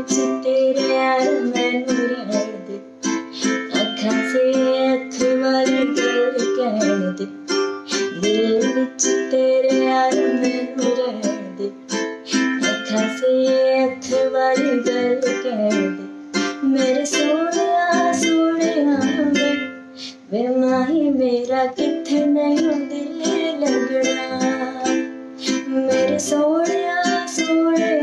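A woman singing to her own ukulele, strummed in a steady rhythm under her voice.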